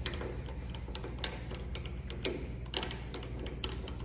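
Irregular light clicks and taps of door lock hardware being worked on by hand, several a second, over a steady low hum.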